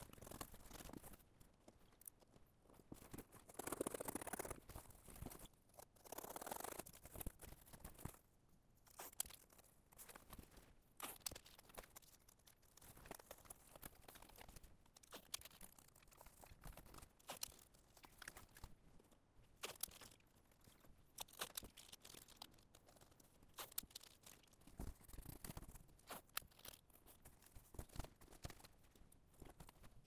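Faint, intermittent tearing and rustling of painter's tape pulled and torn and cardboard handled, with scattered light clicks and taps; the longest tearing bursts come about four and about six seconds in.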